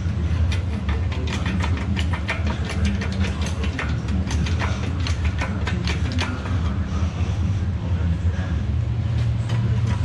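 Steel lifting chain and workshop crane rattling and clicking rapidly as a heavy backhoe gearbox hanging from them is lowered and handled, over a steady low hum. The clatter thins out after about seven seconds.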